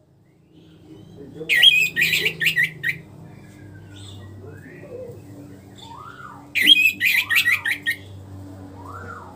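Orange-headed thrush (anis merah) singing, a bird just out of its moult: two loud bursts of rapid song phrases, each about a second and a half long and about five seconds apart, with softer rising-and-falling notes between.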